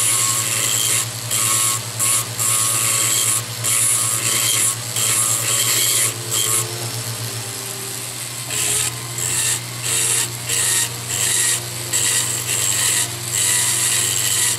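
Small rotary tool running with a steady hum while its bur grinds into a metal bezel cup in short repeated bursts, about one to two a second, enlarging the seat for a cabochon.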